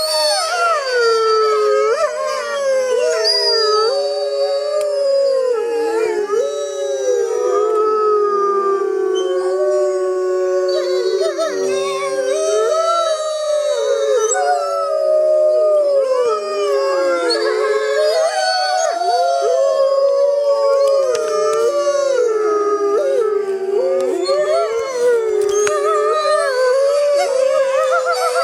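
Wolves howling in chorus: several long, overlapping howls at different pitches, gliding up and down and running on without a break.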